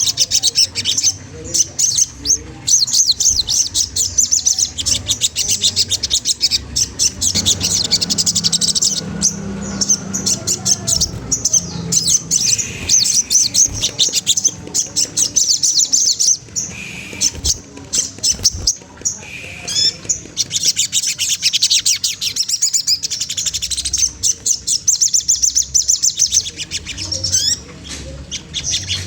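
A sogon trotol songbird singing a long, rapid, high-pitched chattering trill, broken by a few short pauses.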